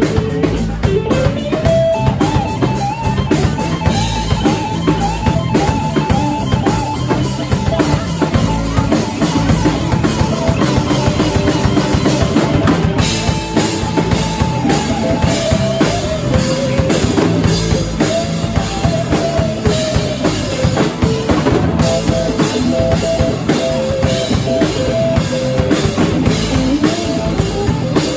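A live band playing an original song, with a full drum kit (kick and snare) keeping a steady beat under a wavering melodic line.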